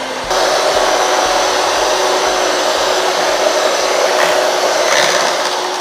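Electric hand mixer running, its beaters whipping potatoes into mash in a stainless steel pot. It is a steady motor whine that steps up louder just after the start and then holds.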